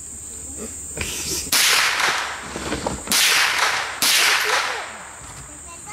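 Three gunshots at a firing range, each a sharp crack trailing off in a short echo: the first about a second and a half in, then two more a second and a half and a second apart.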